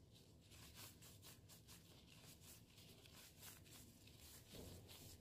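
Faint, repeated soft rubbing and squishing of plastic-gloved hands rolling raw ground-beef mixture into meatballs, with a soft bump near the end.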